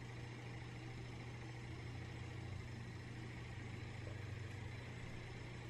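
A steady low hum of room tone, even throughout with no distinct events.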